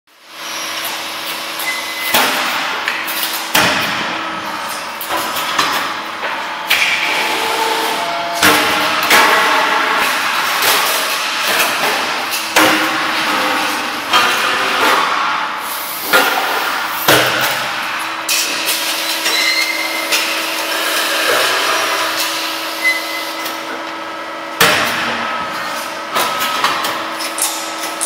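Hydraulic CNC press brake (WC67K, 63-ton, 2.5 m bed) at work bending sheet-steel cable tray. A steady pump hum runs under sharp metallic clanks and knocks that come every few seconds at irregular intervals as the ram strokes and the sheet is moved.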